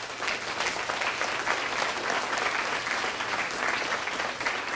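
Audience applauding: many hands clapping, breaking out at once and holding steady.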